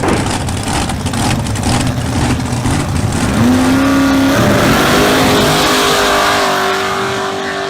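A motor vehicle engine revving, its pitch climbing about three seconds in and then holding high and steady before fading out.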